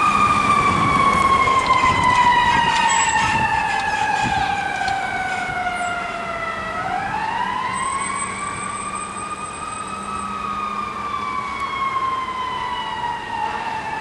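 Fire engine siren wailing: its pitch falls slowly for about seven seconds, winds back up over the next three, then starts falling again. It fades gradually as the engine moves away.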